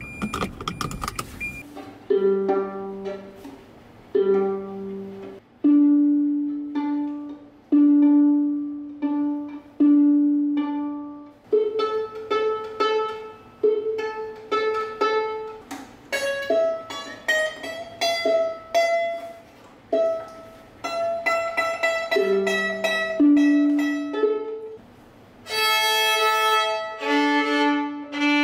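Violin played in slow, separate notes, each starting sharply and fading, stepping up across the four open strings (G, D, A, E) and back down, as in a warm-up or open-string exercise. It follows a brief moment of car-cabin noise at the very start.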